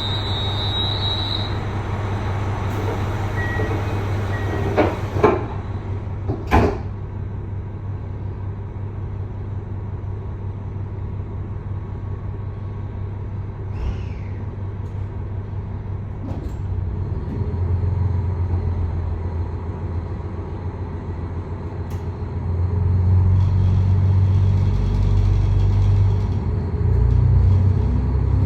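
KiHa 261 series diesel railcar idling with a steady low engine hum; a door chime sounds near the start, and the doors slide shut with a few knocks about five to seven seconds in. The diesel engines then get louder, most of all in the last six seconds.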